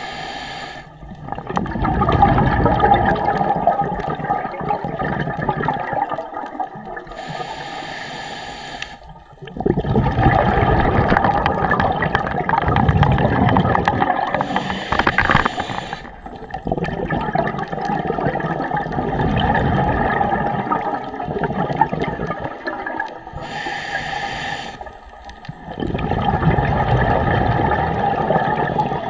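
Underwater breathing of a scuba diver: long rushes of exhaled bubbles from the regulator, each lasting several seconds, separated by brief quieter breaks between breaths.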